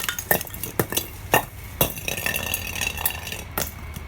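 Glass bottles breaking: a quick run of sharp glassy clinks and crunches of shards, thinning out after about two seconds, with a ringing tone that fades near the end.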